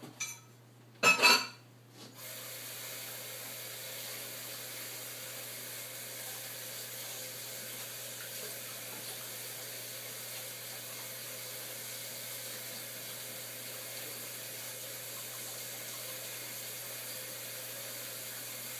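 A short knock about a second in, then a water tap turned on and left running steadily into a sink.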